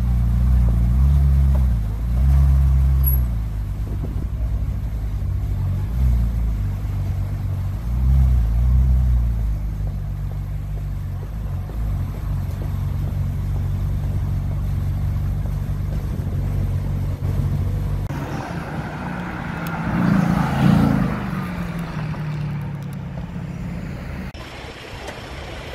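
Ferrari California's V8 idling, with short revs at about one, two and a half and eight and a half seconds in, then settling into a steady idle. About eighteen seconds in it gives way to another car driving past, loudest around twenty seconds in.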